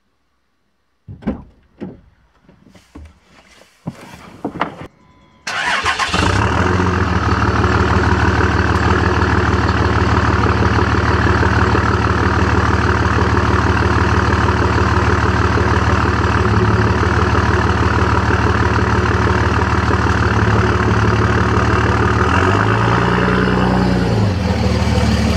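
Dodge Ram pickup's engine: a few clicks and knocks, then it starts about five seconds in and settles into a steady idle. Near the end it is revved once, the pitch rising and falling back.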